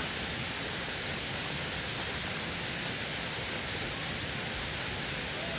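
Steady outdoor background hiss: an even rushing noise with no distinct events.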